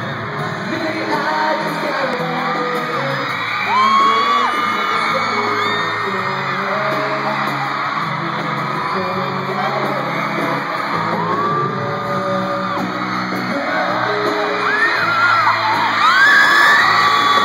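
A male pop vocal group singing live over band music in an arena, with a crowd of fans screaming and whooping over it; the screaming swells near the end.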